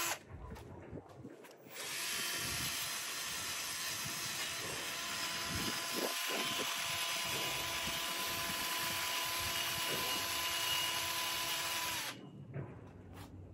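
Cordless drill fitted with a wire brush, running against a painted metal pergola bar to strip off old paint. It starts about two seconds in, runs steadily with a thin whine, and stops about a second and a half before the end.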